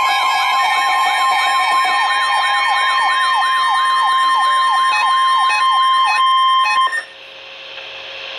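Weather radio alert: a steady high-pitched warning tone with a fast, repeating rising-and-falling siren-like alarm over it, announcing a Special Marine Warning. It cuts off suddenly about seven seconds in, leaving faint radio hiss.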